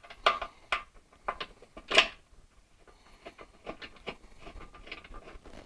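Irregular metallic clicks and knocks of a wrench and fender nuts and bolts being handled and started by hand, with one sharper knock about two seconds in and lighter ticks after.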